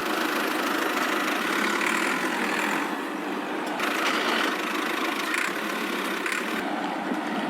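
Steady mechanical running noise, like a small engine or motor idling, with no clear pitch and a few slight swells.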